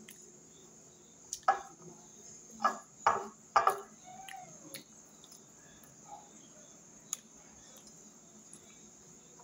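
Fingers picking food from a glass plate, making a handful of short clicks and scrapes against the glass, bunched between about one and four seconds in, with one more click near the end.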